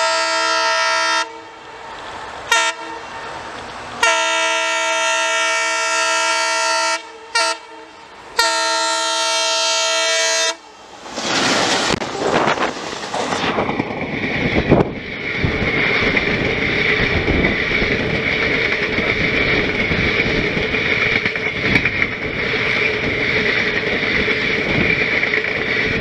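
WDM3A diesel locomotive's multi-tone air horn blaring in a series of long and short blasts as it approaches, then the train passing close by: the locomotive rushes past about eleven seconds in and the express coaches roll by with a steady roar and clickety-clack of wheels over rail joints.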